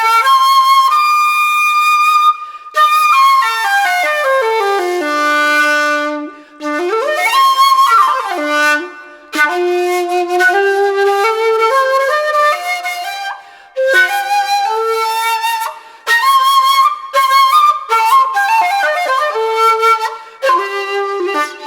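A 1.8-shaku (D-pitched) shakuhachi played solo in short breathy phrases separated by brief pauses, with one pitch slide up and back down near the middle. Its lowest notes sit on the instrument's open D.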